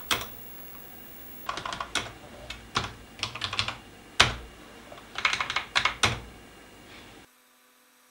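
Computer keyboard keys being pressed in short irregular bursts, with one hard keystroke about four seconds in the loudest. A steady background hiss cuts off suddenly near the end.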